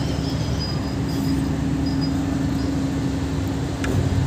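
Steady drone of a tanker ship's machinery heard on deck while it manoeuvres to berth: a constant hum over a low throb, with a rushing noise behind it.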